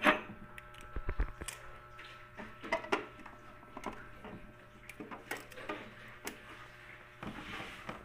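Scattered clicks, taps and light plastic rustling as packing plastic is pulled off the shelves inside a new small refrigerator, with the loudest knock right at the start.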